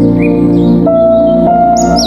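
Calm new-age background music of held keyboard notes that change every half second or so, with bird chirps mixed in, one louder chirp near the end.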